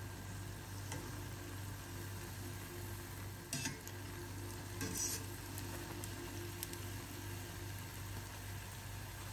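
Beignets deep-frying in oil in a stainless steel saucepan, with a steady sizzle. A wire skimmer clinks against the pan a few times, most loudly about three and a half and five seconds in.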